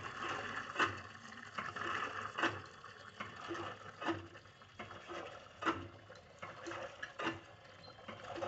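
A person sniffing sharply through the nose, a short noisy intake about every second and a half with breathy hiss between, while trying to bring on a sneeze.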